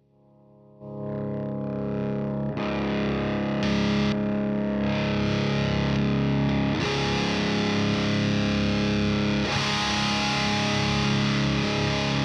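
Electric guitar played through a Fortin Hexdrive overdrive pedal into a Mesa Single Rectifier amp, with distorted, sustained chords ringing out. It swells in from near silence about a second in and holds steady.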